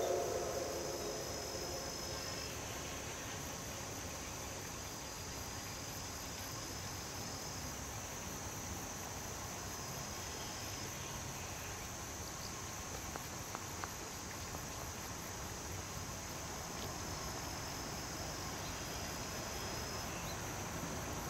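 Field insects chirring: a steady high, thin trill, with a second, slightly lower trill that comes and goes in spells of a few seconds, over a faint background hiss.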